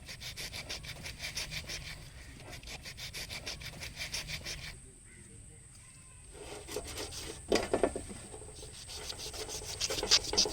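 Knife scraping the large, hard scales off a parrotfish in quick repeated strokes. The strokes stop for about a second and a half midway, then resume more strongly.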